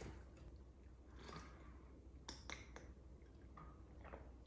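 Near silence: room tone with a few faint, soft mouth clicks and smacks halfway through as a sip of cocktail is tasted.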